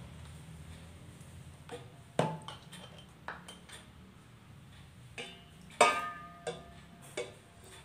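About seven sharp clinks and knocks of plastic against glass and a pot: a plastic funnel is set into a glass bottle and a plastic cup is knocked about inside a pot. The loudest knocks come about two seconds in and near six seconds, some with a short ring.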